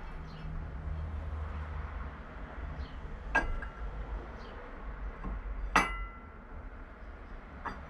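Metal parts clinking as they are handled during CVT variator reassembly: two sharp, ringing clinks about two and a half seconds apart and a lighter one near the end, over a low steady hum.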